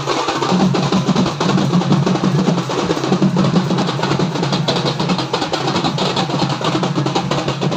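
Loud music with drums and percussion playing continuously.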